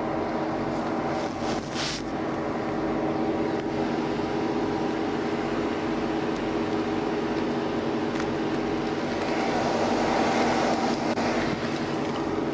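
Steady mechanical hum of a parked, idling police patrol car, with a brief rustle about two seconds in and a swell of rushing noise around ten seconds in.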